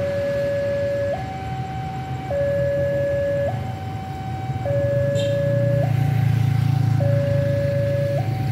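Level-crossing warning alarm sounding a two-tone electronic signal that alternates between a lower and a higher pitch about once a second. Under it, the low engine rumble of an approaching CC 201 diesel-electric locomotive grows louder from about five seconds in.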